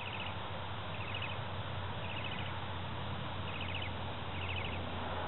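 Regular chirping from a small animal: a quick burst of about five or six high notes roughly once a second, over a steady low hum.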